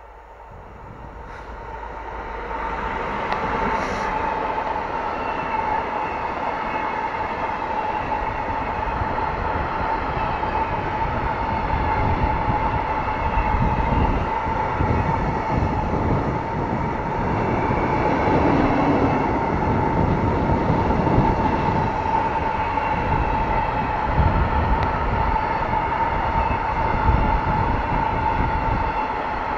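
Freight train of open-top wagons rolling past close by: a loud, steady rumble of wheels on rails with a steady high-pitched ring running through it. The sound builds over the first few seconds as the locomotive draws near and passes, then holds as the wagons go by.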